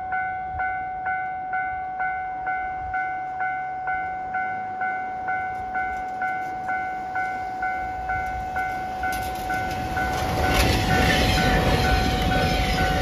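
Railway level crossing alarm ringing its electronic bell about twice a second. A train arrives and passes, its running noise rising sharply about ten seconds in and drowning out the bell.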